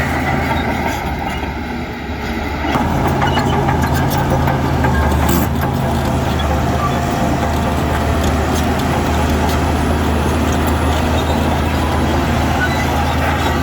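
Heavy diesel engine of earthmoving machinery running steadily. It dips briefly, then comes back stronger under load about three seconds in, with scattered clanks and rattles soon after.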